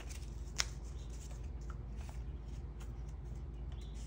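Quiet handling of paper cash and envelopes: soft rustling and light ticks, with one sharp tap about half a second in.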